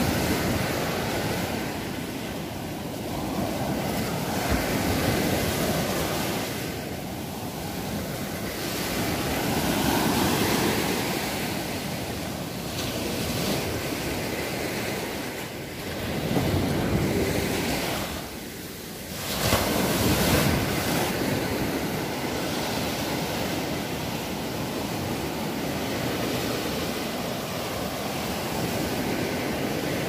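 Surf breaking on a sandy beach, mixed with wind buffeting the microphone. The rush swells and eases every few seconds, with a brief lull about two-thirds of the way through.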